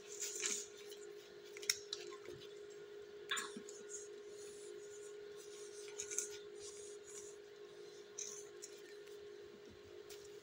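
Soft rustling and brief scraping of gloved hands handling adhesive tape and a newborn's nasogastric tube while fixing it to the face, with a few sharper clicks, over a steady low hum.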